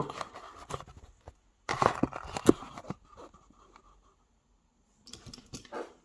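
Handling noise: a string of clicks, knocks and scrapes as the camera is propped up and small objects are moved on a wooden desk. There is a short lull about four seconds in.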